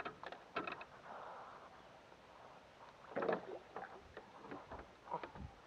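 Small-boat sounds while a fish is reeled in: a fishing reel being cranked, water against the hull, and scattered light clicks and knocks of tackle on the boat, with a louder thump a little after three seconds in.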